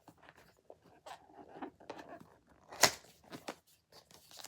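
A product box's packaging being handled and worked open by hand: irregular rustling and scraping with small clicks, and one sharp snap nearly three seconds in, the loudest sound.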